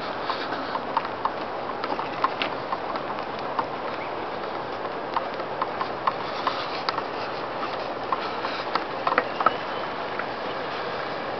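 Footsteps clicking irregularly on a wooden deck, over a steady background hiss, with a few louder clicks about nine seconds in.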